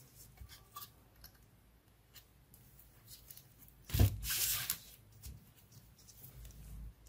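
Soldering work on the underside of a power-supply circuit board: scattered small clicks and handling noise, with a brief scraping rustle about four seconds in and a weaker one near the end.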